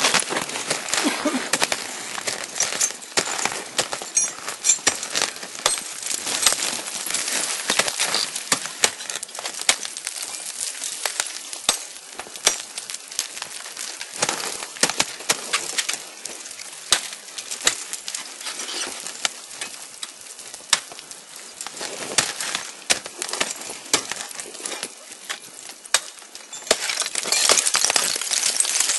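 Ice axes and crampons striking frozen waterfall ice: irregular sharp knocks and chinks, with chips of ice clinking as they break off.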